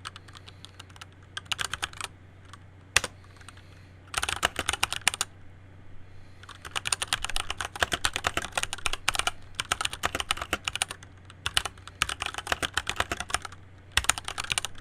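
Typing on a Keychron C1 mechanical keyboard: a few single key presses at first, then runs of fast keystrokes broken by short pauses.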